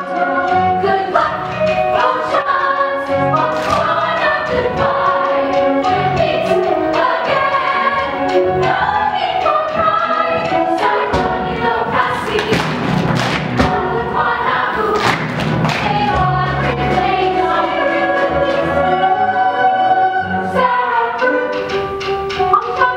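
Stage musical ensemble singing together in chorus with accompanying music and recurring percussive thumps, with a busier, fuller passage in the middle.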